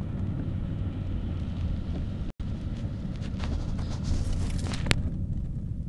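Steady low road and engine rumble of a car driving, heard from inside the cabin. The sound cuts out for an instant a little over two seconds in, and a sharp click comes near the end.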